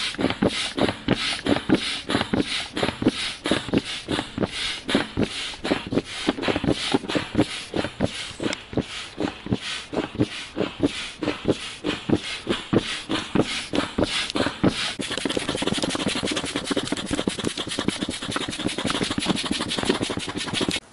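Manual air pump inflating a PVC inflatable boat through a hose: a rhythmic puff of air about three strokes a second. From about two thirds of the way in, the strokes come closer together under a steadier hiss.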